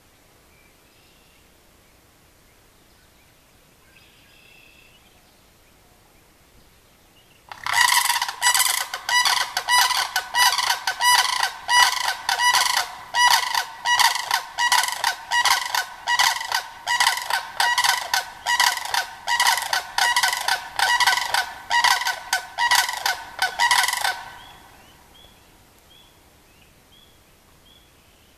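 Pair of sandhill cranes calling together, heads thrown back: loud rattling calls repeated about two a second for some sixteen seconds, then stopping. They are answering another crane's call, heard faint and distant a few seconds before they start.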